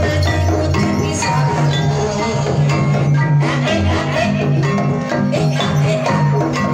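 Banyumasan gamelan music for a kuda kepang trance dance, playing continuously: a melody of struck mallet-percussion notes over drumming and recurring deep booming low tones.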